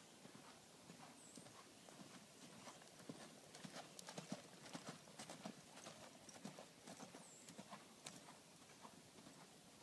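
Hoofbeats of a draft-cross mare cantering on a sand arena, growing louder about three and a half seconds in as she passes close, then fading as she moves away.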